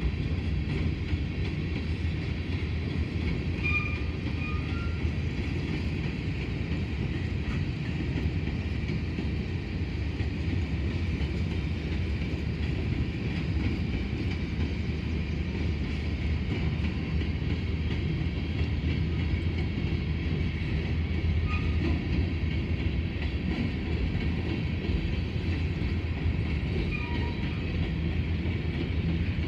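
Covered hopper cars of a freight grain train rolling past: a steady, even rumble of steel wheels on the rails. A few brief high squeaks are heard over it.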